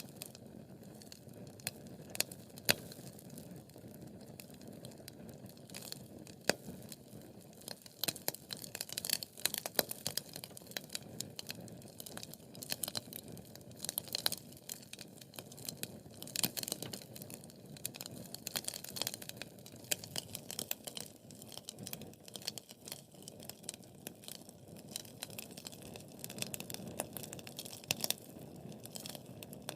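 Wood fire crackling and popping in a fireplace: frequent sharp pops over a steady low rush of burning, busiest from about eight seconds in.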